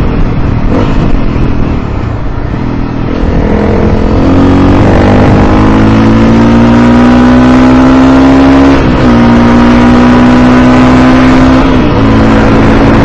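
Motorcycle engine accelerating, its pitch rising steadily for several seconds, then dropping abruptly at a gear change about nine seconds in and again briefly near the end.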